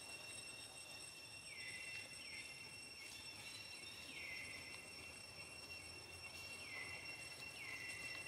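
Faint forest insects: a steady high-pitched drone, with a short falling chirp repeated about every second.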